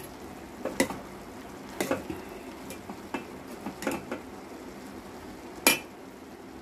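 Steel spoon stirring boondi in sugar syrup in a stainless-steel pot, clinking and scraping against the pot four or five times, the loudest clink near the end. A faint steady simmering of the syrup runs beneath.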